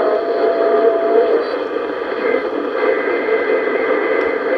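Receiver audio from a shortwave transceiver tuned around 1.7 MHz: a steady hiss of band noise with a faint steady whistle through the first second or so, then a higher whistle from about halfway on.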